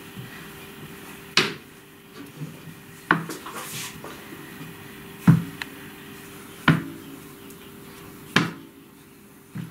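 Wooden rolling pin rolling out puff pastry on a plastic chopping board, with five sharp knocks a second and a half to two seconds apart as the pin and board clack against the table, over a faint steady hum.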